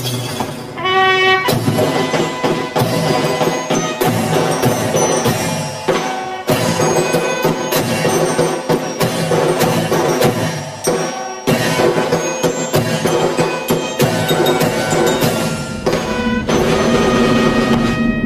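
Martial band music: drums beating steadily under a melody of chiming bells.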